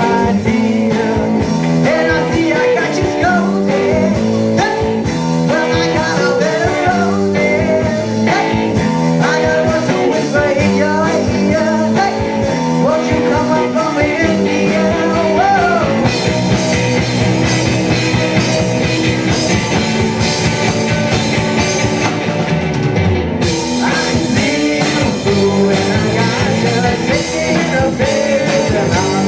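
A rock band playing live with electric guitar, bass and drums, loud and continuous. The sound grows fuller and denser about halfway through.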